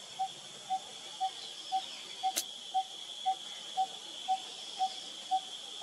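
Wild ambience: a steady high insect drone, with a short low note repeated evenly about twice a second and a single sharp click a little past halfway.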